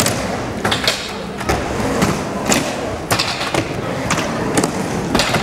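Skateboard wheels rolling on concrete ramps, broken by sharp clacks and thuds of boards striking the surface, about one every half second.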